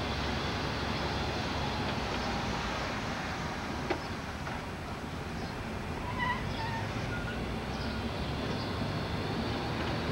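Steady engine and road noise of a car driving slowly, heard from inside the cabin. There is a sharp click about four seconds in, and a few short high chirps between six and seven seconds.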